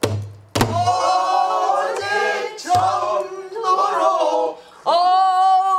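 A woman sings pansori in full voice, holding long notes that waver and bend, with strokes on a buk barrel drum: a sharp stroke about half a second in and softer thuds around two and three seconds in.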